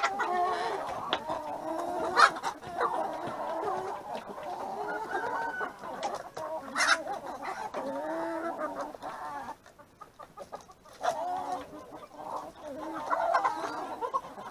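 A large flock of roosters and hens clucking together as they feed, many overlapping calls. There are two sharp, high calls, about two and seven seconds in. The flock goes briefly quieter about ten seconds in.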